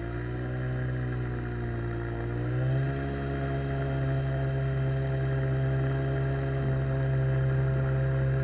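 Outboard jet motor on an inflatable boat running under way. Its pitch sags slightly over the first couple of seconds, then rises as it is throttled up about three seconds in and holds steady.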